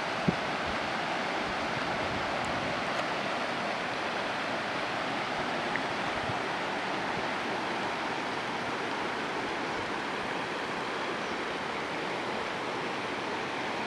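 Floodwater rushing steadily, an even wash of water noise. One brief knock comes just after the start.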